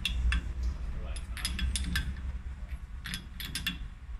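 A short 1-inch wrench clicking and clinking against a steel hydraulic hose fitting as it is worked back and forth to tighten the fitting, in three short bursts of clicks over a low steady rumble.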